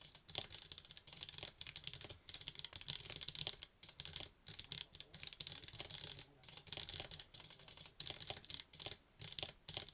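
Fast typing on a Womier K87 mechanical keyboard with red switches: a quick, continuous run of key clacks with short pauses between bursts.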